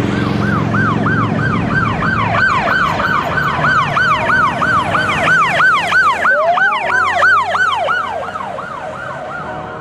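Several police car sirens sounding a fast yelp together, about three up-and-down sweeps a second, with a slower rising wail coming in about six seconds in, over low traffic rumble. The sirens ease off a little near the end.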